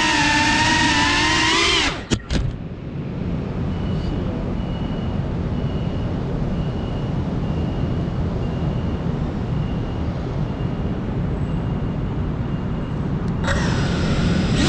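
FPV drone's motors whining, then cutting out about two seconds in with a couple of sharp knocks as the drone touches down. A steady low background rumble follows, with a faint high beep repeating about every 0.7 seconds. Near the end the motors spin up again with a rising whine.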